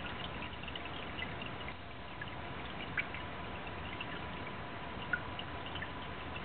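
Water trickling and dripping into a basement sump pit, with scattered drops and two louder drips about three and five seconds in, over a faint steady high hum. The inflow keeps filling the pit between pump cycles even with no rain.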